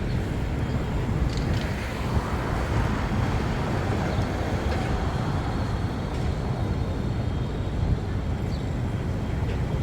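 City street ambience of a busy traffic circle: steady traffic noise with a low rumble from passing vehicles.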